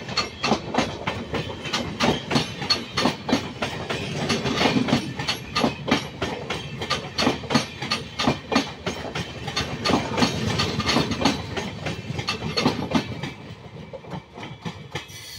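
Freight train wagons passing at speed, their wheels clattering rapidly and rhythmically over the rail joints, with a rumble underneath. The clatter drops off sharply about thirteen seconds in, leaving a quieter rumble.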